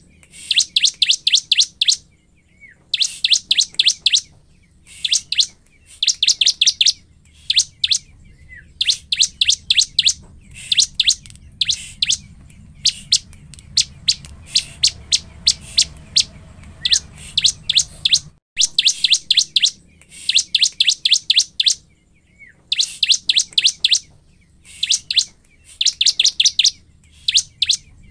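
Ciblek (a prinia) singing in full song: loud, rapid strings of sharp, high notes in bursts of about a second, repeated with short pauses and one longer break midway. This is the kind of song used as a lure to provoke another ciblek.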